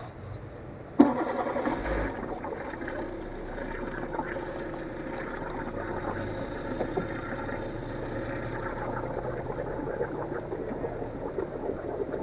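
A boat's motor starts about a second in and then runs steadily.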